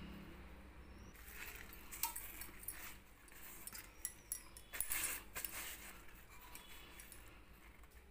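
Light kitchen handling sounds: scattered clinks from a glass oil bottle and a steel strainer, with wet pumpkin leaves rustling as they are oiled and moved, the loudest clinks about five seconds in.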